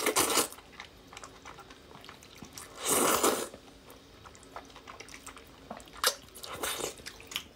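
A person slurping spicy potato-starch noodles in broth: a short slurp at the very start, a longer, louder one about three seconds in, and a few shorter slurps and chews near the end.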